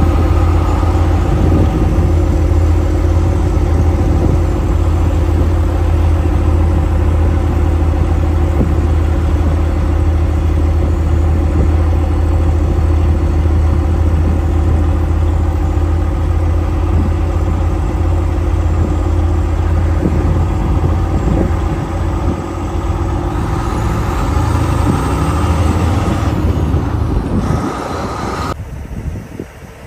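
Log truck's diesel engine running, a loud, steady low drone heard from inside the cab, fading out near the end.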